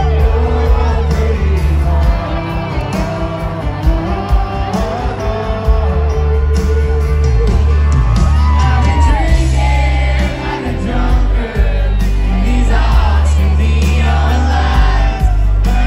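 Live country band playing loud amplified music with singing: acoustic and electric guitars over a heavy bass.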